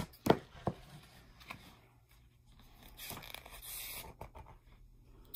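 Handling noise close to the microphone: a few light knocks in the first second and a half, then a rustling scrape lasting about a second, around three seconds in.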